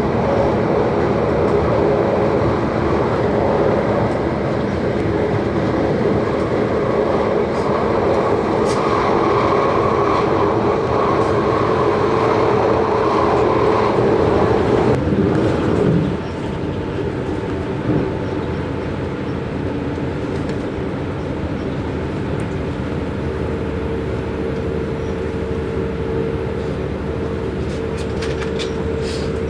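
Regional diesel railcar running at speed, heard from inside the carriage: steady rolling and engine noise with a humming tone. About sixteen seconds in it drops a little quieter and stays steady.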